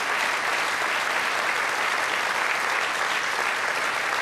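Audience applauding, many hands clapping in a steady, even spell.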